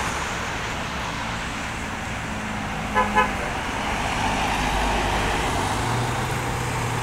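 Steady road noise and the low engine hum of a passing tour bus, with two quick short horn beeps about three seconds in.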